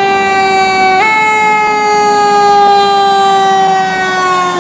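Fire engine's warning siren sounding one long, loud, continuous tone. Its pitch sags slowly throughout, with a brief jump up about a second in.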